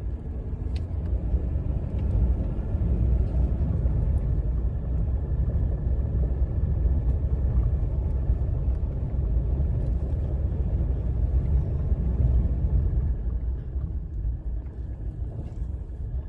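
Steady low rumble of a 2018 Ram 1500 EcoDiesel pickup driving slowly over a bumpy gravel drive, with a few faint ticks; this is a road test for a front-end rattle over bumps.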